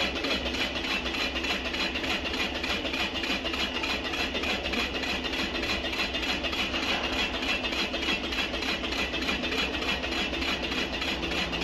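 Large CNC wood lathe turning a 900 mm-diameter log, the cutter hissing steadily against the spinning wood over a low motor hum.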